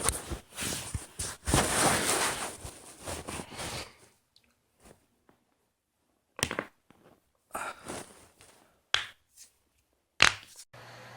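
Rustling and shifting for about four seconds, then several separate sharp cracks from neck and back joints being popped, with a loud one near the end.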